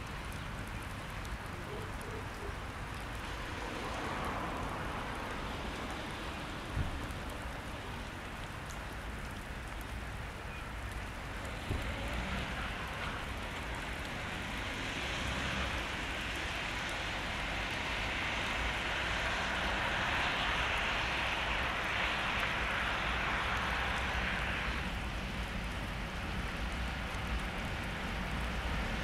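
Distant diesel-hydraulic freight locomotive and its wagons approaching, a steady noisy rumble that slowly grows louder as the train draws closer.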